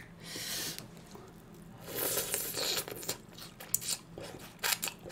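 Someone eating sliced raw onion: crunchy bites and chewing, with a few short sharp clicks in the second half.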